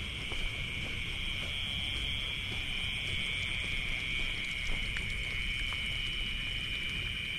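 Steady high-pitched night chorus of insects and frogs in rice paddies, an unbroken trill on two close pitches.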